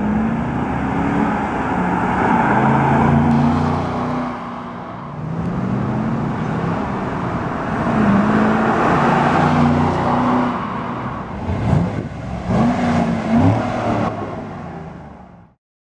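2011 Chevrolet Camaro SS's 6.2-litre LS3 V8 exhaust under hard acceleration on a drive-by, its pitch climbing through each gear and dropping back at the shifts. Near the end come a few short, sharp revs, then the sound cuts off suddenly.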